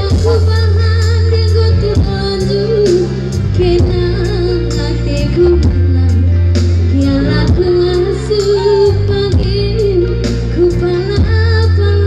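A woman singing live with a band, amplified over a concert PA system: a wavering sung melody over heavy bass and a steady drum beat.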